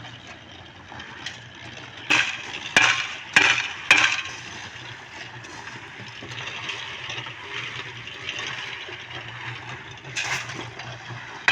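Wet concrete being poured and worked into plinth beam formwork, a sloshing haze over a steady low machine hum, with four sharp metallic strikes between about two and four seconds in and another near the end.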